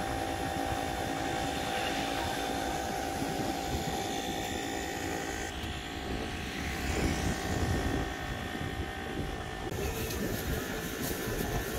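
Steady low rumble of vehicle noise, changing abruptly about halfway through and again near the end.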